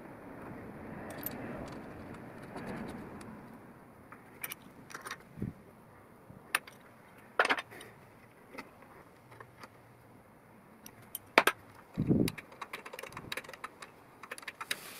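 Light metallic clicks and clinks, with soft rubbing early on, as a lathe change gear is fitted by hand onto the steel spindle of a homemade dividing head and the parts around it are adjusted. A duller knock comes about twelve seconds in.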